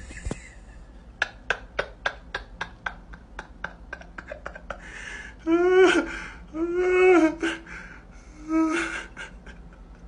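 A dog's claws click on a hard floor as it walks up. Then come three drawn-out, wavering vocal calls, the loudest part, about five to nine seconds in.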